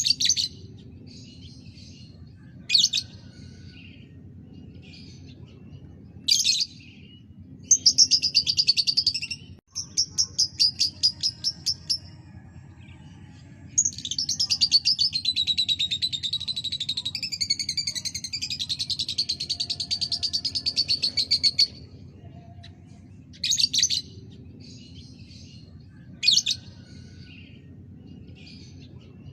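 Lovebird singing: short sharp chirps, a fast pulsing run about eight seconds in, then a long rapid trill of about eight seconds, the drawn-out trill that Indonesian keepers call ngekek. A low steady hum sits underneath.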